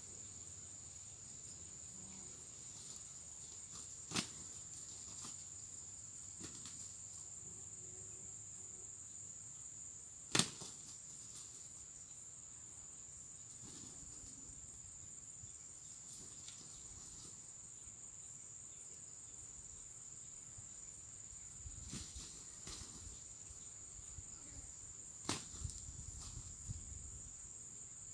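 A steady high-pitched insect drone. Over it come a few sharp snaps: one about four seconds in, a louder one about ten seconds in, and several more near the end along with some low rustling.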